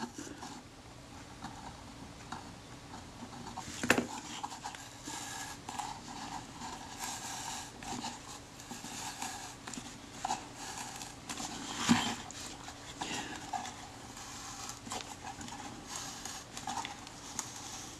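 Faint crackling and rustling of the old leather covering being slowly peeled off the metal back of a Kodak Retina IIa camera by hand, with two sharper clicks, about four seconds and twelve seconds in.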